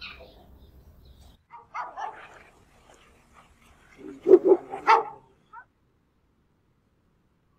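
Dog barking: a few barks about two seconds in, then a quick run of about four louder barks between four and five seconds in.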